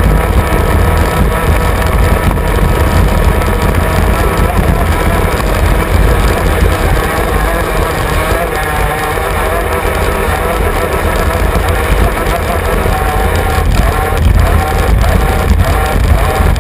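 Engine of a 350-class inboard racing hydroplane running steadily, heard on board from right behind the cockpit, with the rumble of the hull on the water.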